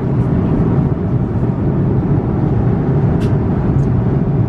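Steady in-flight cabin drone of an Airbus A330-200 heard from an economy window seat: engine and airflow noise, deep and even. About three seconds in, a faint rustle of magazine pages being turned.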